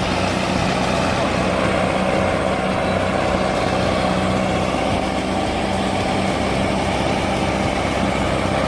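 Heavy machine engine running steadily at a constant pitch.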